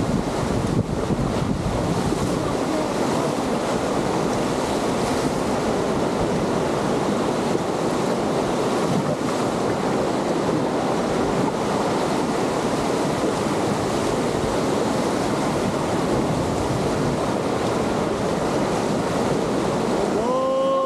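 Steady rushing of whitewater river rapids churning around an inflatable raft, heard up close.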